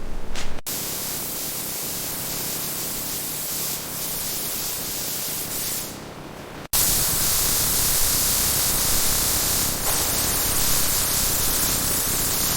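Steady hissing spray, in two stretches joined by abrupt cuts; the second stretch, starting near seven seconds in, is louder and brighter.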